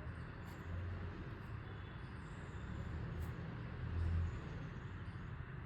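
Steady low background rumble, swelling briefly about four seconds in, with a few faint ticks.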